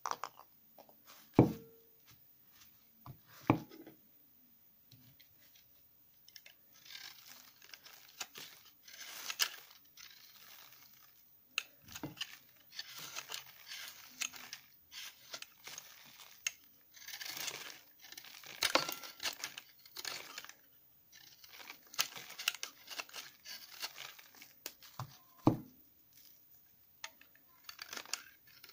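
A utility knife blade shaving dry, powdery soap off a bundle of leftover soap bars stuck together, in runs of dry, crunchy scraping strokes. A few sharp knocks come in the first few seconds, before the scraping starts, and twice more during it.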